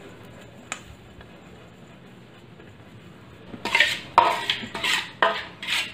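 Spatula scraping and turning roasted wheat flour around a steel bowl: a quick run of scraping strokes starting about three and a half seconds in, after a quiet stretch with one light click. The hot flour is being turned to let the steam out and cool it.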